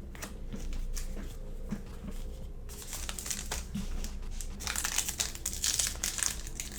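Crinkling of a trading card pack's wrapper being handled and opened, faint at first, then much louder and denser in the second half.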